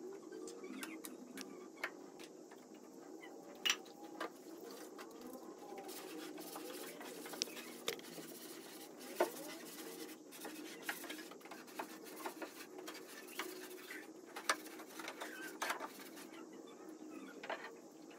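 Scattered light clicks, taps and knocks at irregular moments, the sound of household objects being handled and set down while cleaning, over a faint steady hum.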